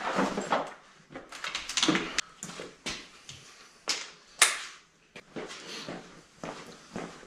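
Irregular clicks, knocks and clatter of a plastic tool case being handled and opened on a workbench, with metal sockets rattling in it; the sharpest click comes about four and a half seconds in.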